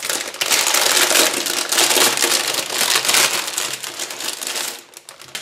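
Thin plastic packaging crinkling and rustling continuously as it is handled and pulled open, stopping near the end.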